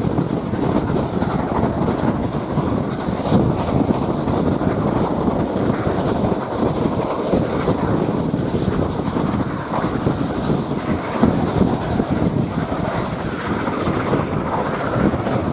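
Wind rushing over the microphone from an open carriage window, over the steady running noise of a train hauled by Garratt steam locomotive 6029.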